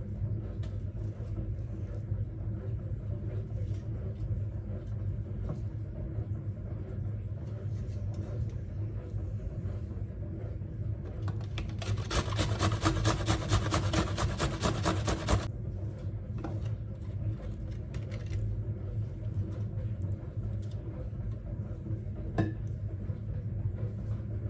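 A steady low mechanical hum. About halfway through, a louder, rapid rattling noise comes in for some three seconds.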